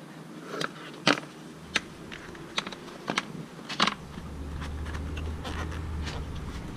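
Scattered clicks and knocks of tools and parts being handled while working on a motorcycle, about eight in the first four seconds. A low steady hum comes in about four seconds in.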